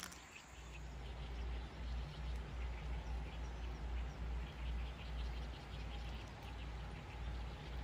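Outdoor ambience: a low, uneven rumble of wind on the microphone, with faint, scattered chirps of insects and birds in the grass.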